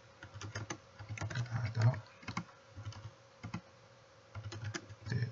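Typing on a computer keyboard: irregular runs of keystrokes, with a lull of about a second some three and a half seconds in.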